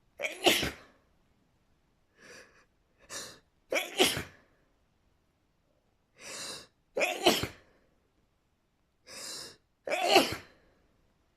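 A person sneezing four times in a row, about every three seconds. Each sneeze comes after a shorter, quieter intake of breath.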